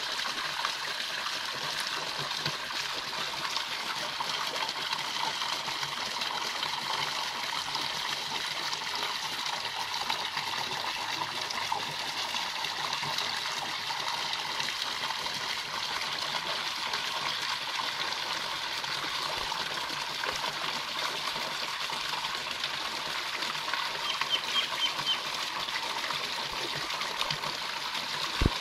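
Steady splash and rush of running water in a pool. A few brief high chirps come about three quarters of the way through, and a single sharp click comes just before the end.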